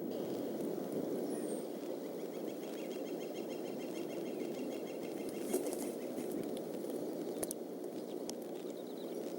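Steady rain noise on the eagle-nest microphone, with a few sharp ticks. For the first half or so there is a fast, faint, high-pitched trill.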